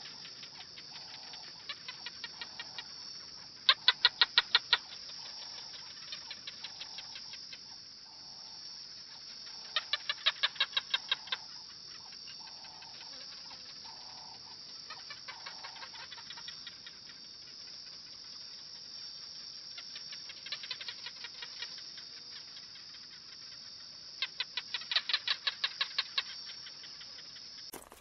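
Wildlife ambience: short bursts of rapid chattering calls, about six to eight pulses a second and a second or two long, repeating every few seconds over a steady high hiss. The loudest bursts come about four and ten seconds in.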